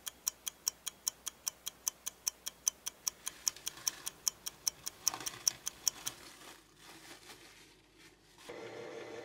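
Clock ticking sound effect, about four even ticks a second, marking the passing of the dough's half-hour rest; it stops about six seconds in. A brief rustle comes just before the ticking ends.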